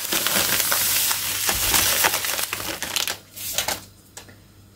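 Granulated sugar pouring from a plastic packet into a plastic mixing bowl of flour: a steady, rushing hiss for about three seconds, then a few light clicks and knocks as the packet is handled.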